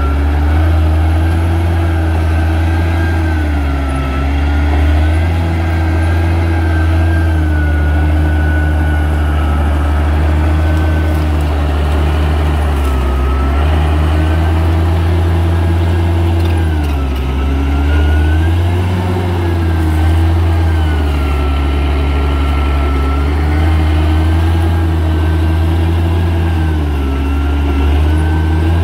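Bulldozer's diesel engine running under work: a steady heavy low drone with a whine whose pitch dips and recovers every few seconds.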